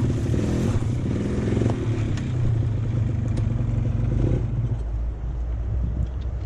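Suzuki MX125 off-road motorcycle engine running under throttle, its pitch rising and falling in the first couple of seconds, then holding steady before easing off to a lower note near the end.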